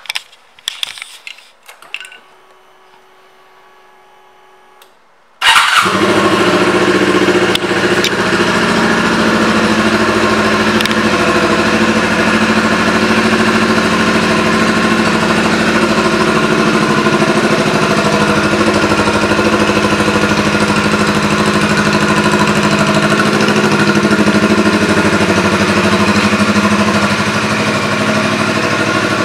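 A few clicks and a faint steady hum, then the 2018 Suzuki GSX250R's 248 cc parallel-twin engine starts about five seconds in and idles steadily.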